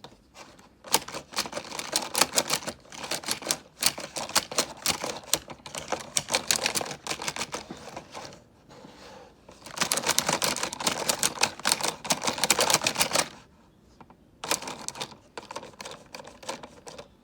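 Akedo PowerStorm plastic battle figures clacking rapidly as they punch at each other, in three long bursts of fast clicks with short pauses between.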